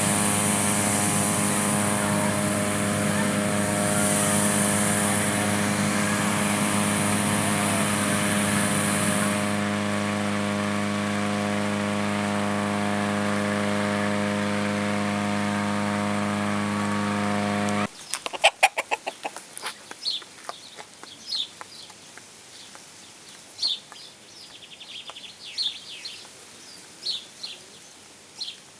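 Engine-driven inflator fan running at a steady pitch while a hot air balloon envelope fills, with a high hiss over it that stops about nine seconds in. It cuts off abruptly about two thirds of the way through, and a much quieter stretch follows, with a few sharp knocks and short, high bird calls near a rooster.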